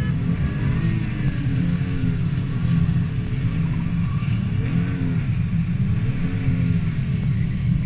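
BMW straight-six engine revving up and falling back over and over, a rise and fall every second or two, as the throttle is worked to hold the car in a drift.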